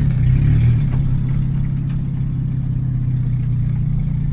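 1993 Honda Civic hatchback's engine and drivetrain droning steadily, heard from inside the cabin while it is being driven, swelling slightly in the first second.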